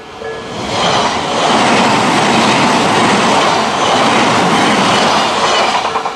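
Odakyu Odawara Line train passing over a level crossing, a loud rush of wheel and rail noise rising about a second in and easing off near the end. It drowns the crossing's electronic alarm, which rings in a steady two-tone pattern about twice a second at the start and comes through again as the train clears.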